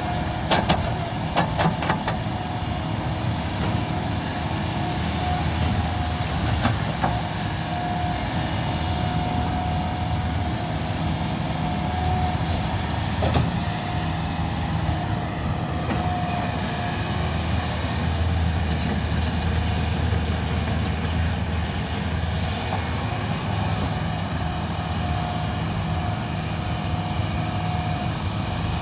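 Kobelco SK220 excavator's diesel engine running steadily under load as it digs, with a steady whine over the engine drone. A few sharp clanks come in the first two seconds.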